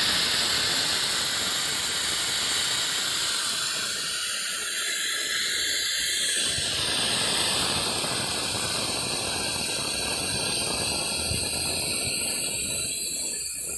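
Pneumatic oil extractor's compressed-air venturi hissing steadily as it pulls a vacuum, sucking waste engine oil through a hose into its clear collection cup.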